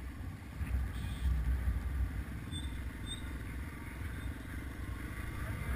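Small air-cooled single-cylinder Yamaha dual-sport motorcycle engine running steadily as the bike rides a dirt trail, heard close from the rider's own bike, a little louder from about a second in.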